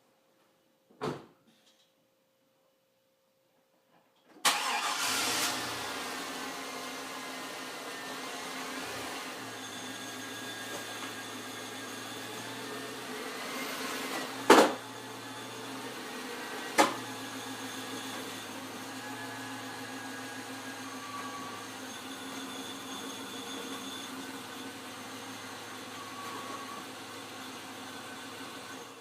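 Chevy Avalanche's 5.3-litre Vortec V8 starting after a few seconds of quiet, running loudest just after it fires and then settling to a steady run with slight rises and falls in engine speed. Two sharp knocks come a couple of seconds apart midway.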